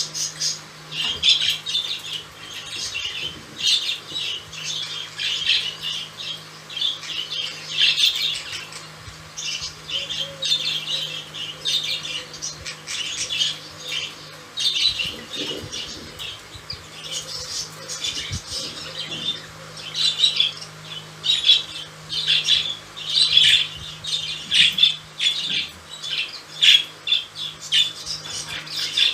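A pair of budgerigars chattering and squawking: a dense, unbroken run of short, high chirps and squawks, over a steady low hum.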